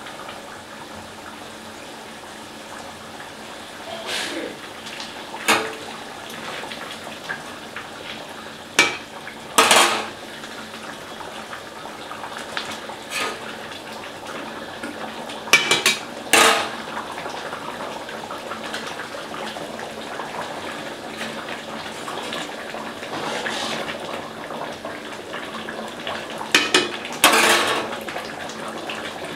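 Curry gravy simmering in an aluminium kadai with a steady bubbling hiss. Fried fish pieces go in one by one, with several sharp metal clinks and clatters against the pan and plate, some in quick pairs.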